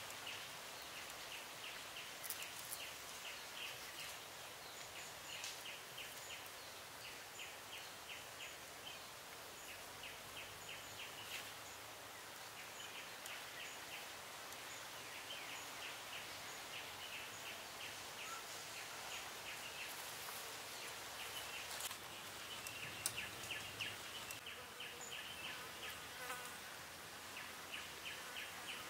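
Faint forest ambience with an insect chirping in trains of quick pulses, each about a second long, repeating every second or two. There are a few scattered soft clicks and rustles.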